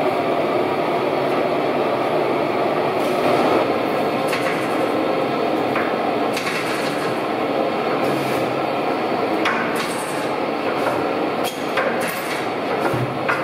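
Old Tangye stationary petroleum engine running: a steady mechanical clatter with irregular sharp knocks.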